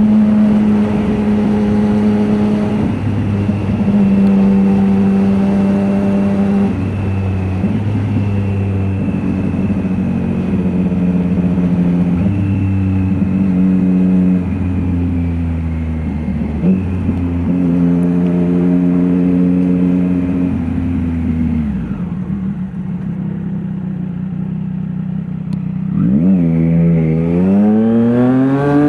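Triumph Street Triple RS 765's inline three-cylinder engine through an SC Project S1 slip-on exhaust with the silencer out, running at steady engine speeds with several changes. The note drops off about three-quarters of the way through, then one rev climbs sharply and falls away near the end.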